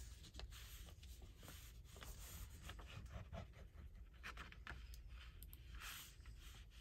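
Faint paper-craft handling: glue being run along a paper page, with soft scratchy rustles and small clicks of paper being handled. One longer rustle comes about six seconds in.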